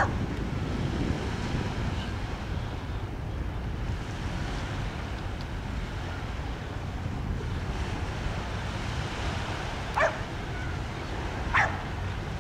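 Steady low rumble of wind on the microphone, with a dog barking three times: once at the very start, then twice near the end, about a second and a half apart.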